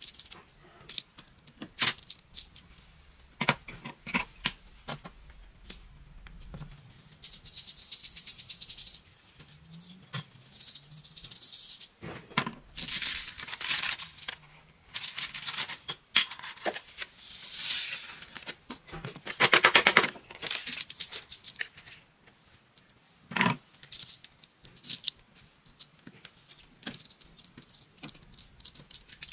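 Dry craft sand rattling and hissing in bursts as it is poured over an adhesive sand-art sheet and shaken off, with small clicks and paper sounds as backing pieces are peeled up with a pick.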